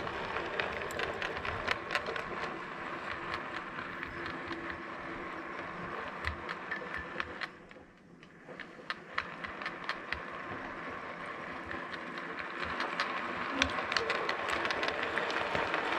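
OO gauge model train running on the track, its wheels clicking over the rail joints above a small motor's whirr. The sound fades as the train runs away, is quietest about eight seconds in, then builds again as the train comes back near the end.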